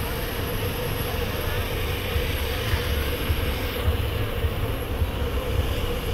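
Distant aerobatic aircraft's engine as a steady drone, under heavy wind buffeting on the microphone.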